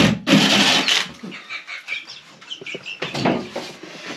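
Power drill spinning a hole saw, cutting into a ceiling to enlarge a downlight hole; the cut stops about a second in. After it come scattered short, high squeaks and chirps.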